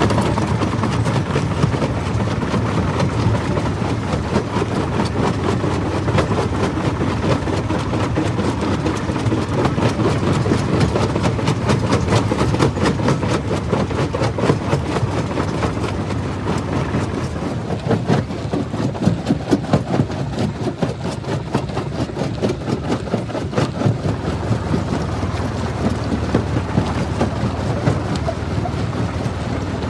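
Jaw crusher running under load: a steady machine noise packed with the crunching and clattering of rock being broken between the jaws. Partway through, the noise thins and the crunches come as more separate, sharper knocks.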